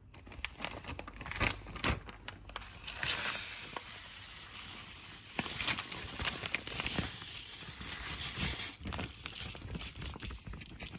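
Plastic zipper bag crinkling as coloured sugar is handled and tipped out of it, with a steady hiss of sugar grains and many small crackles.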